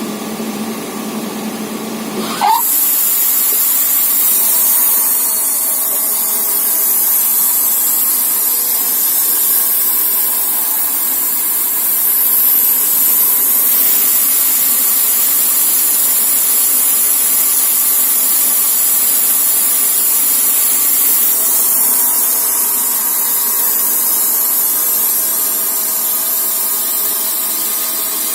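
Wood-Mizer LT40 Super Hydraulic band sawmill cutting a log: a loud, steady, hissing saw noise that starts abruptly about two and a half seconds in and holds steady after that.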